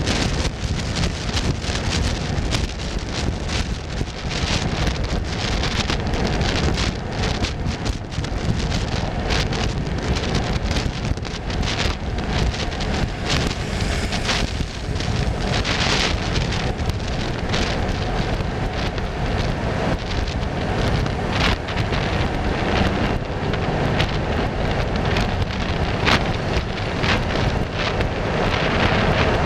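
Wind buffeting the microphone: a steady low rumble broken by frequent crackles.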